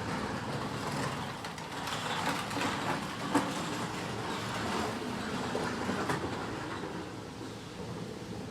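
Power drill boring out a stripped bolt hole in an engine cylinder head to oversize it for a helicoil insert, running steadily with an uneven grinding note and one sharp click a little over three seconds in.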